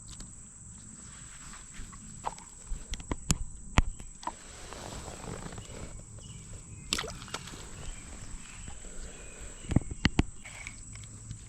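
Scattered sharp knocks and clicks, loudest around three to four seconds in and again near ten seconds, over a steady high insect drone.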